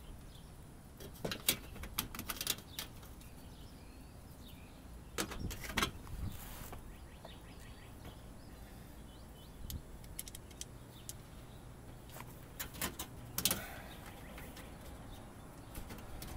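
Three short clusters of clicks, taps and light rattles as a car's thin aluminum splash shield is handled and pushed into place on its mounting tabs. Faint bird chirps in the background.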